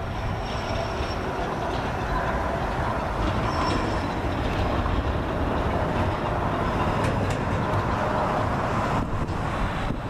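Steady rumbling, hissing background noise, swelling slightly through the middle.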